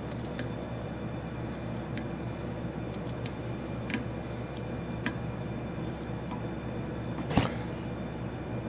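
Faint, scattered ticks of fly-tying work as thread is whip-finished at the head of a fly in the vise, over a steady low hum. Near the end comes one sharper click as the thread is snipped with scissors.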